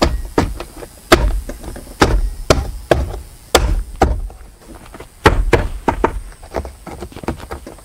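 Plastic dashboard trim panels of a Ford Transit being pressed and snapped back into place: a string of irregular sharp knocks and clicks, several a second.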